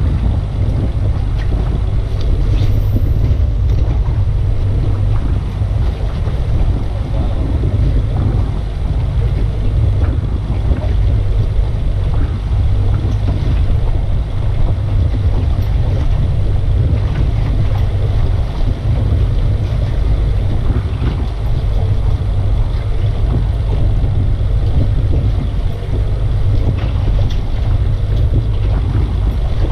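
Steady wind buffeting the microphone on an open boat at sea: a constant low rumbling rush, with sea noise beneath it.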